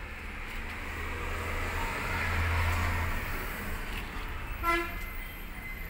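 A passing motor vehicle: a steady rumble that swells to its loudest about halfway through and then fades, with a short horn toot near the end.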